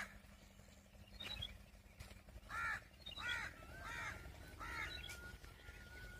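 A crow cawing, five short calls well under a second apart. A thin steady high tone comes in near the end, over a faint low rumble.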